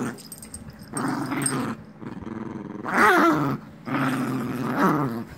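Small dog growling in play while wrestling with a hand: a string of drawn-out growls with short breaks, the loudest about three seconds in, wavering in pitch.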